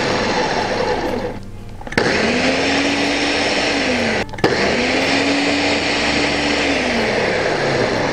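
Ninja blender pulsing crepe batter: the motor spins up, holds and winds down three times, with a short pause about a second and a half in and a very brief one about four seconds in.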